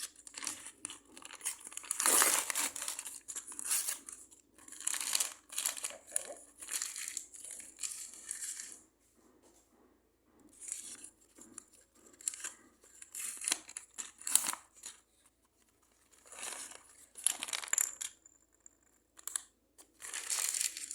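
Thin plastic packaging crinkling and tearing in irregular bursts with short pauses, as small toy pieces are unwrapped.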